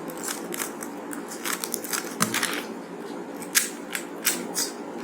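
Rubik's Cube layers being twisted by hand: a run of irregular plastic clicks, a few a second, coming faster near the end.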